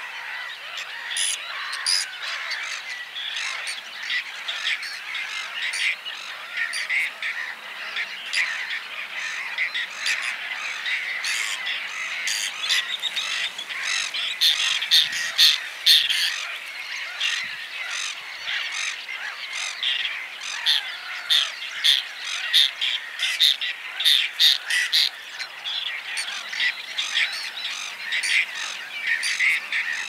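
Whiskered terns calling in the breeding season: many short, sharp calls in quick succession, loudest a little past the middle, over a dense continuous background chorus.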